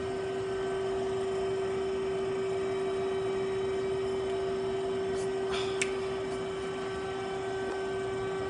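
Steady hum of a powered-up Daewoo Puma 150G CNC gang lathe and its chip conveyor, one even tone throughout, with a fainter higher tone joining about five and a half seconds in and a single sharp click just after.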